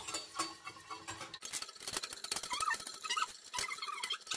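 Wire whisk clicking and scraping rapidly against a small stainless steel saucepan, beating a powder into hot melted coconut oil, with a few short squeaks partway through.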